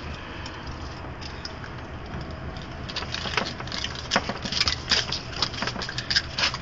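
A hook remover being worked in the mouth of a freshly caught gilthead sea bream, which is lifted off the concrete on it. Over a steady low rumble, irregular sharp clicks and taps start about three seconds in.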